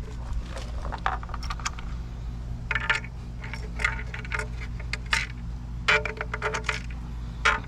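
Scattered small clicks and light metallic taps of hard parts being handled and fitted as a replacement pump drive goes onto a pool pump, in short clusters over a steady low hum.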